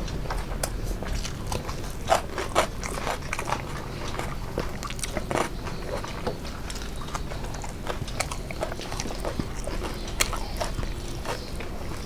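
A person chewing and biting food, close up: a run of short, irregular mouth clicks.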